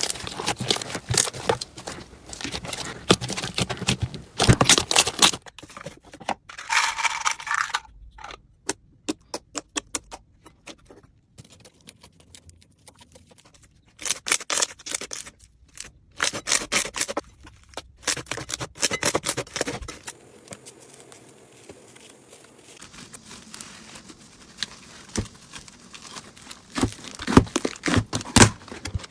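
Slime being squeezed, poked and stretched by hand, giving dense crackling and popping clicks, in several short stretches with quieter pauses between them.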